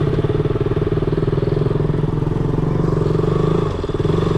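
Motorcycle engine running steadily while riding, its note dipping briefly about three and a half seconds in before picking up again.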